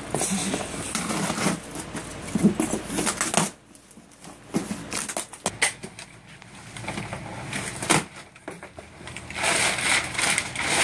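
Cardboard shipping box being opened and crumpled brown kraft packing paper pulled out of it: irregular rustling, crinkling and scraping of paper and cardboard. It goes quieter about a third of the way in and turns to a dense paper rustle near the end.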